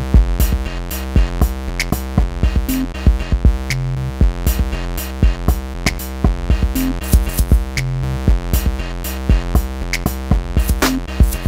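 Background music with a steady electronic drum-machine beat and synthesizer.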